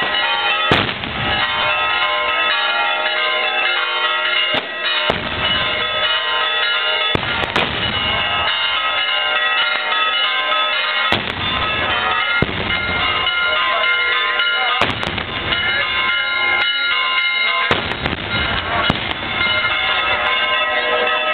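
Easter firecrackers and dynamite-type bangers going off, about nine sharp, loud blasts at irregular intervals. Underneath is a continuous ringing of many steady tones and crowd noise.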